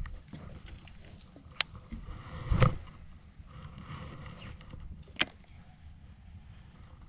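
Handling noise in a small fishing boat: a low rumble, a dull knock about two and a half seconds in, and two sharp clicks, one early and one near the end, from the rod, reel and boat being handled.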